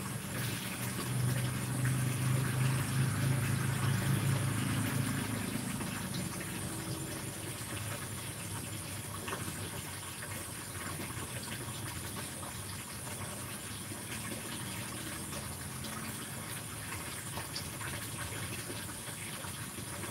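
Steady background hiss, with a low hum that swells and fades over the first five or six seconds.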